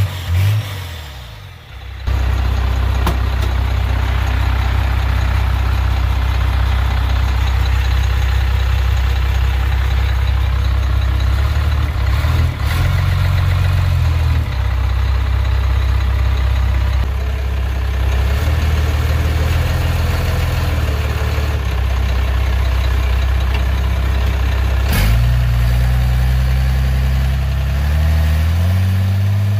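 Pickup truck engine heard from inside the cab. It starts about two seconds in, then runs under way with a steady low drone whose pitch changes in steps several times as the truck is driven through the gears of its newly fitted NV4500 five-speed manual transmission.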